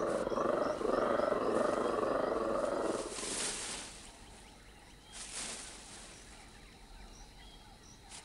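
Male black-and-white colobus monkey giving its deep, pulsing dawn roar for about three seconds. This is followed by two short rushes of shaken branches and leaves as the monkeys leap in the tree.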